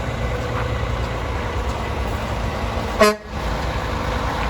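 A truck horn gives one short toot about three seconds in and cuts off abruptly, over a steady low rumble of road traffic.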